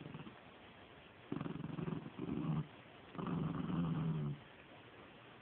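Small Chihuahua–rat terrier mix growling in play while tugging on a stuffed toy: three low growls, the last and longest about a second.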